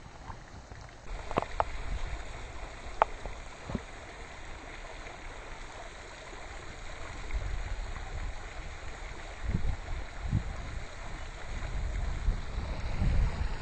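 Wind buffeting the camera microphone: a low rumble that swells and drops in gusts, stronger in the second half, with a few small handling clicks in the first few seconds.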